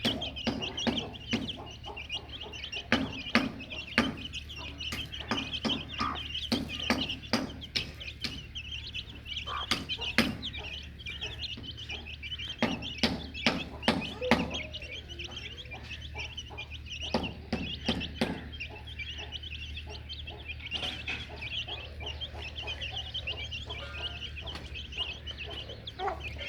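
Many chicks peeping continuously in a dense high-pitched chorus, with a hen clucking and frequent sharp taps. A steady low hum runs underneath.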